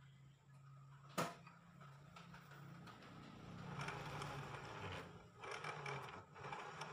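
Rear wheel of a Yamaha Mio Sporty scooter turned by hand with the CVT cover off, giving a faint, uneven rough noise from the clutch and driven-pulley assembly, the sign of worn, dragging pulley bearings. A sharp click about a second in.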